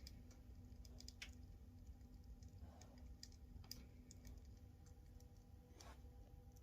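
Near silence: a sleeping American Staffordshire terrier puppy's faint breathing, two soft breaths about three seconds apart, over a steady low hum and scattered tiny clicks.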